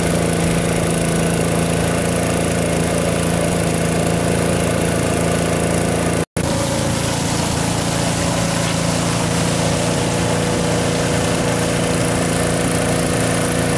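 Small boat engine running steadily at a constant speed, with a brief dropout to silence about halfway through.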